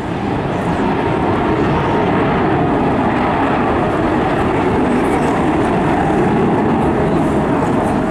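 Jet noise from an RAF Eurofighter Typhoon FGR4's twin EJ200 turbofans during a display, loud and steady, building slightly in the first second.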